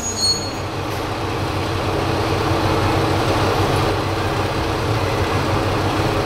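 Diesel railcars idling at a station platform: a steady engine rumble with a low hum. A short high-pitched wheel squeal fades out in the first half second as a car comes to a stop.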